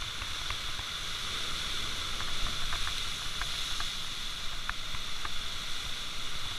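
A steady hiss with a low rumble underneath, with a few faint, light clicks scattered through as a small fish is worked off a fishing hook by hand.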